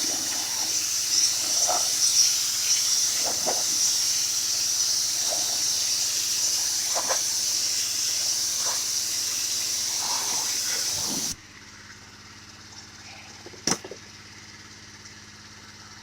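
Pressure washer spray from a handheld gun with a 40-degree white tip blasting a wooden deck, a loud steady hiss with small spatters. It cuts off suddenly about 11 seconds in as the trigger is released, leaving the pressure washer's motor running steadily, with a sharp click a couple of seconds later.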